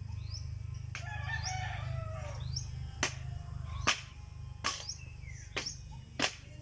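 A rooster crows once, then five sharp knocks come roughly a second apart, the second the loudest, over steady background music.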